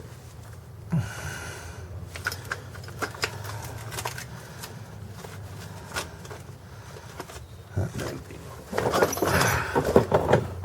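Metal hand tools clinking and clattering as sockets and wrenches are handled, with scattered sharp clicks and a denser run of clatter near the end.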